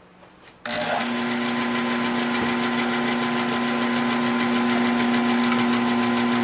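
Nova 16/24 wood lathe starting abruptly about half a second in and then running steadily, a constant hum with the rough oak blank spinning on it.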